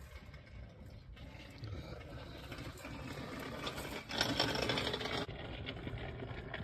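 Water hissing and spraying from a pinhole leak in a pressurised water supply pipe, growing louder for about a second past the middle.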